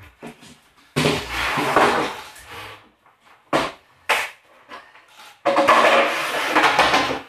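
Particleboard panels of an IKEA Malm chest of drawers being smashed and clattering, in two loud spells of about two seconds each with a couple of short sharp bangs between them.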